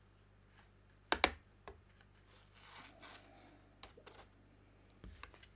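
Excess gold embossing powder being tipped off a card and tray back into a plastic tub: two sharp taps about a second in, a soft hiss of sliding powder, then a few lighter clicks of the tub and card being handled.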